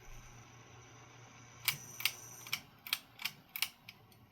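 Harbor Breeze Armitage ceiling fan motor, freshly hung without blades, running with a steady low hum. A run of sharp clicks about three a second joins it partway through. The bearings are a little bit noisy, though they are nearly new.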